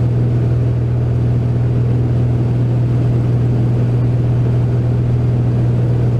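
Navion single-engine light aircraft's piston engine and propeller running steadily, a loud, deep, unbroken drone heard from inside the cockpit.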